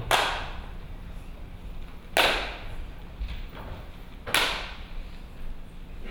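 Three sharp hand claps, about two seconds apart, each ringing briefly in a large hall, with fainter taps in between.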